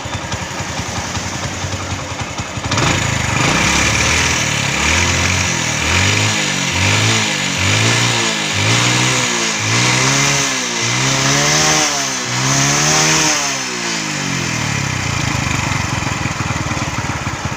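Hero Honda CD100 SS single-cylinder four-stroke engine idling, then revved in about ten quick throttle blips a second or so apart, each rising and falling in pitch and climbing a little higher, before dropping back to idle. The blips test the throttle pick-up on a bike being tuned for misfiring at the carburettor.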